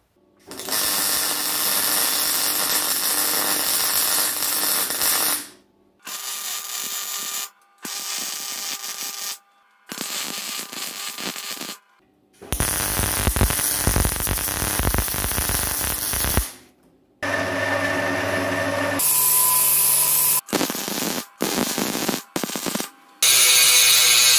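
Steel being worked in a string of short, abruptly cut bursts: arc welding hissing and crackling as steel stiffening bars are welded to a steel sheet, and an angle grinder grinding steel in a loud, high-pitched burst at the end.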